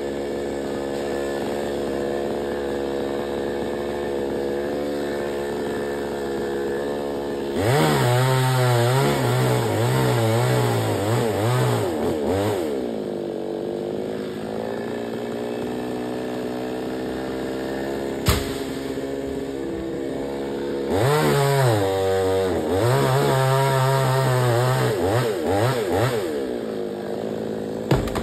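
Chainsaw engine idling, then revved up and held at speed for about five seconds, its pitch wavering, before dropping back to idle; this happens twice. A sharp knock comes between the two runs and another near the end.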